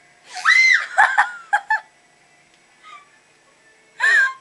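A woman screaming in fright: one long high scream, then a few short shrieks, and another scream near the end.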